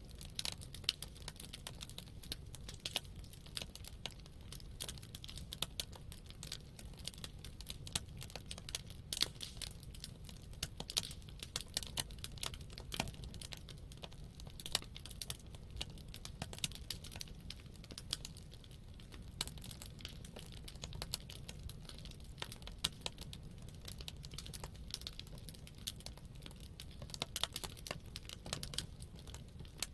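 Wood campfire crackling, with many small, irregular snaps and pops over a low, steady rumble.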